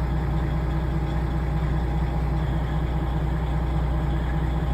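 Semi truck's diesel engine idling, a steady low drone.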